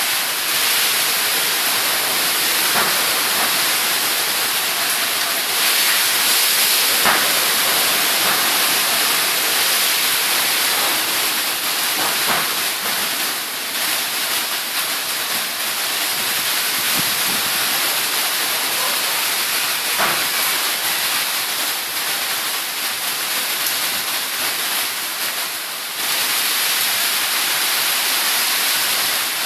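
Heavy rain pouring down in a loud, steady hiss, with a few sharp ticks standing out about seven, twelve and twenty seconds in.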